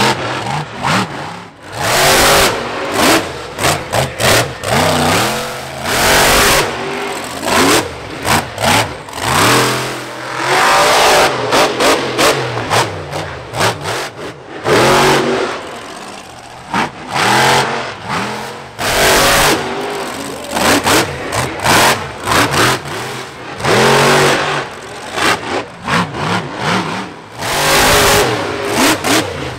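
A monster truck's engine revving hard in repeated bursts that rise and fall, broken by loud bangs and crashes as the truck lands its wheelies and climbs onto crushed cars.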